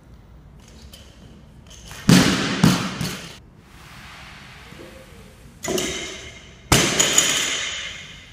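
Heavily loaded barbell with bumper plates hitting a rubber gym floor, thudding with the bar and plates clanking and ringing afterwards. The drops come in two groups, a double hit about two seconds in and two more a little past halfway, the last the sharpest.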